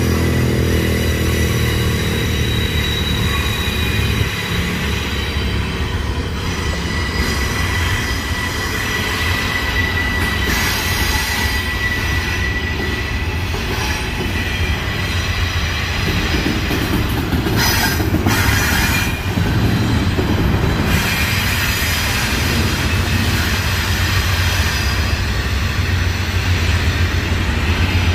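CSX freight train cars rolling past on the rails with a low steady drone. Over it runs a thin, steady squeal of wheel flanges rubbing against the rail on the curve, clearest near the middle.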